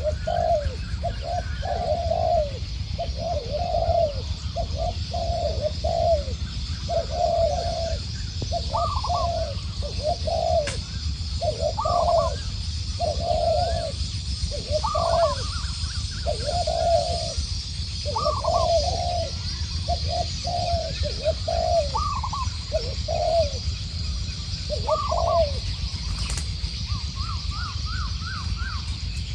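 Spotted doves cooing back and forth almost without a break: a decoy male and a wild male with a middle-pitched voice calling in answer to it, short phrases of coos following one another every second or so. A steady low rumble lies underneath.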